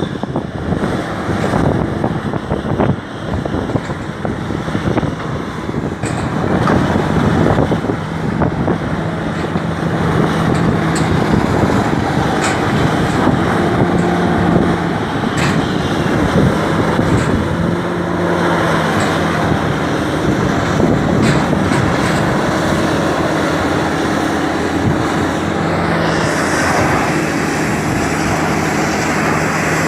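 A large hydraulic excavator's diesel engine running and repeatedly revving up and settling back as it works under load, with a few sharp knocks now and then.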